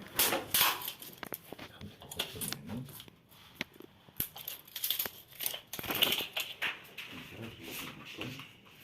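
Irregular handling noises: scattered clicks, taps and short rustles of tools and materials being moved.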